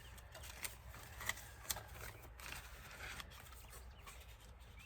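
Faint clicks and light rustling of paper and cardstock being handled and sorted, over a low steady hum.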